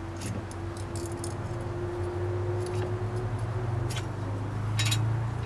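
Light metal clinks and taps, a handful spread through, from tools and the hub assembly as the new front wheel bearing hub is worked onto the CV axle shaft. A steady low hum runs underneath.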